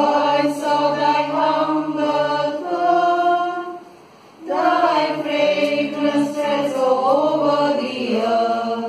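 A choir singing a hymn in two sung phrases, with a short breath pause about four seconds in.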